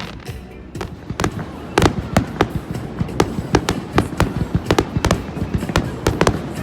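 Fireworks going off in quick succession: a rapid run of sharp bangs and cracks that starts about a second in and comes several times a second.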